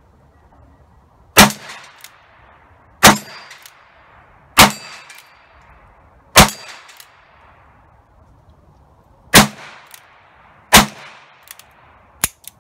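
Ruger Blackhawk .357 Magnum single-action revolver firing six shots, one every one to three seconds, each with a short echo tail, emptying its six-round cylinder. A light click follows near the end.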